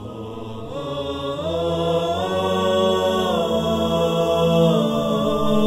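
Unaccompanied vocal intro music: chanted voices holding long notes that slide slowly up and down to new pitches.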